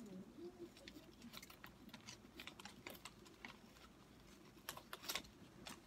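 Faint rustling and small clicks of paper as mailed envelopes are handled and opened by hand, with a couple of louder crinkles near the end.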